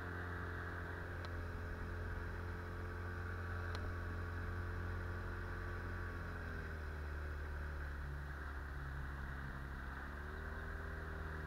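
Small outboard motor pushing an inflatable boat upriver, running at a steady pitch. It is throttled back about six seconds in and opened up again about four seconds later.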